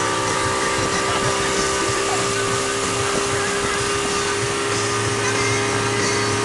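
Tow boat's engine running steadily at speed, its even hum under a constant rush of wind and water noise.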